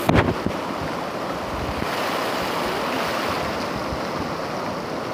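Heavy rain pouring down and splashing into puddles in a steady hiss, with a brief knock right at the start.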